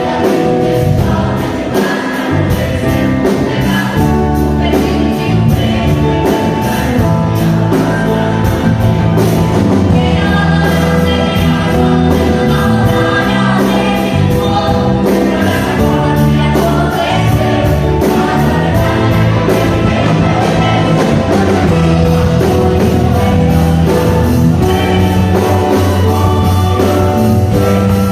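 Gospel music: a choir singing over a band with a steady beat.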